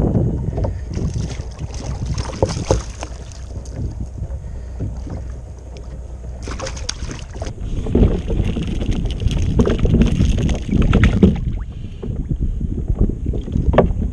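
Hooked fish splashing at the surface beside a kayak in several spells, loudest from about eight to eleven seconds in as it is lifted from the water. Wind buffets the microphone throughout.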